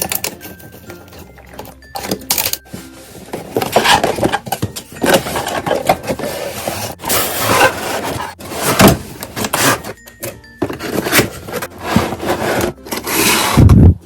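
Toy packaging being handled and opened: irregular crinkling and scraping of plastic and cardboard in quick bursts, with a dull thump near the end.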